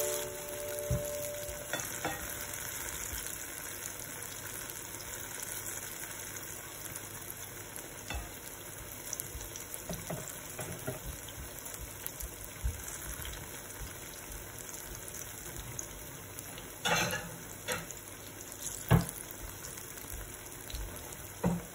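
Battered banana fritters frying in shallow oil in a pan: a steady sizzle, with a few sharp clicks and pops scattered through it, the loudest close together about three quarters of the way in.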